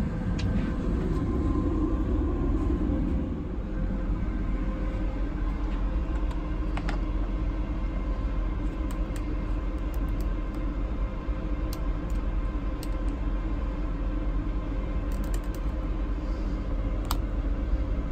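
Steady low rumble inside a railway sleeper-car compartment, a bit louder for the first three seconds, with a faint steady hum and a handful of short, light clicks.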